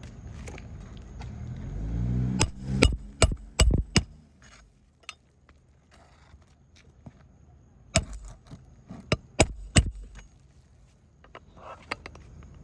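Hammer striking a roof snake to drive roofing nails under a shingle: two runs of sharp metallic blows, five and then four. A low vehicle engine swells and fades about two seconds in.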